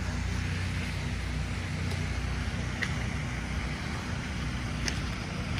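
A vehicle engine running steadily at low revs: a constant low hum, with a couple of faint ticks.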